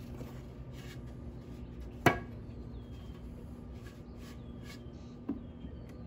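Weathered wooden boards being handled against a wooden frame: one sharp wooden knock about two seconds in and a lighter knock near the end, over a steady low hum.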